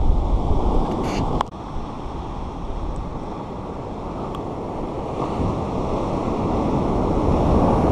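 Surf washing up the beach around the microphone, with wind buffeting it. A brief rustle ends in a sharp click about a second and a half in, the wash drops away suddenly, then swells again near the end.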